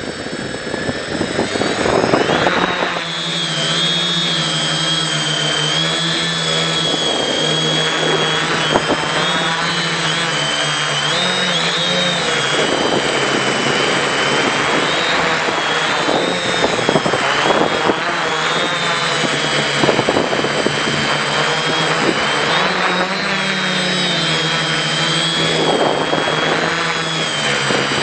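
Quadcopter's electric motors and 11x4.7 APC propellers spinning up for takeoff, then running in flight, heard close from the onboard camera. The whine wavers up and down in pitch as the throttle changes.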